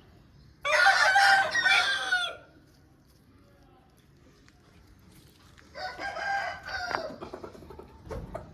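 Aseel rooster crowing: one loud crow about a second in, then a second, quieter call near the end.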